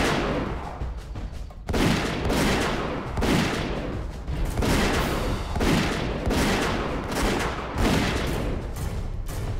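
A loud revolver shot right at the start with a long echoing tail, then, over music, a run of heavy shot-like bangs about every three-quarters of a second.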